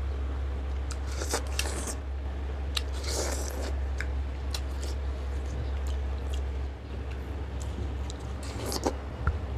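Two people biting into and chewing ripe watermelon slices close to the microphone: crunchy bites and wet chewing with scattered clicks, over a steady low hum.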